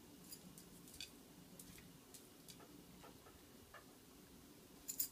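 Faint, scattered clicks of small dogs moving about on a tile floor, a tick every second or so, with a quicker flurry of clicks near the end.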